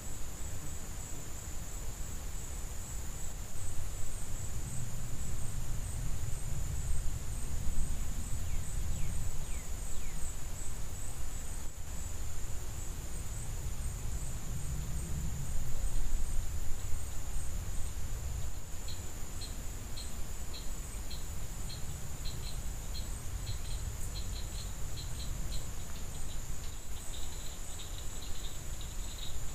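Insects calling: a steady, high-pitched drone runs throughout, and about two-thirds of the way in a rapid, repeated chirping joins it, growing faster toward the end. Beneath it is a low rumble that swells and fades.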